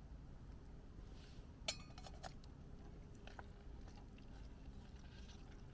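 A metal utensil clinks once against a stainless steel mug of food, ringing briefly, followed by a few soft taps as the food is stirred. Otherwise very quiet.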